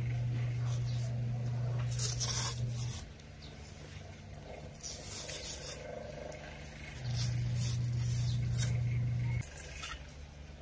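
Hand knife cutting into the rubber of a used tire, a hissing scrape with each short stroke. Under it a steady low hum stops about three seconds in and comes back for a couple of seconds near the end.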